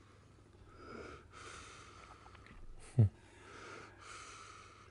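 Soft breathing, drawn in and out in a slow even rhythm of about one breath a second, with one short loud low thump about three seconds in.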